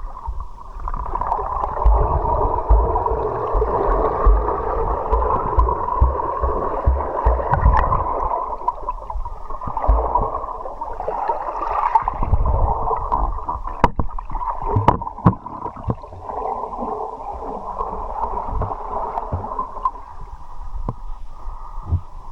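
River water gurgling and rushing, muffled, with low thumps and a few sharp clicks; it eases near the end.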